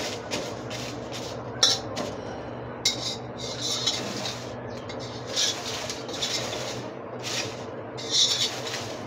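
Metal spatula stirring and scraping dry bay leaves being roasted in a wide kadhai: uneven rasping, rustling strokes about once a second, over a steady low hum.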